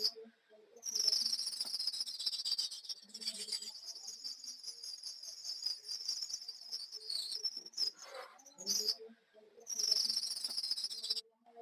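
Engine drive belt squealing with a high, rapidly chirping tone. The squeal stops and starts twice. Bursts of hiss sit over it at about a second in and again near the end.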